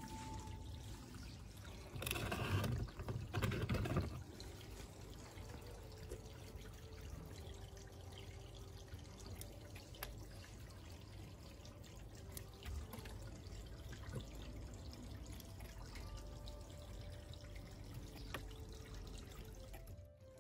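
Bonsai scissors trimming a Chinese elm, giving a few faint snips over a steady water-like hiss. A louder noisy stretch lasts about two seconds near the start.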